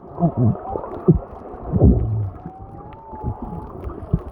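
Humpback whale song heard underwater: several short low moans, the loudest about two seconds in, and a long thin higher note through the middle.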